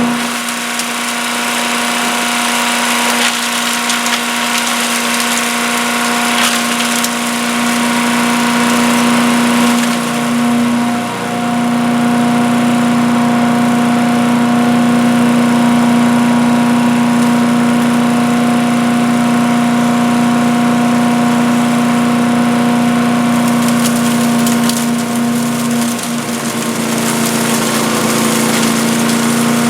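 Earthquake 212 cc wood chipper-shredder's single-cylinder engine running at steady governed speed. It is pulled down briefly twice, about a third of the way in and near the end, as the machine takes load.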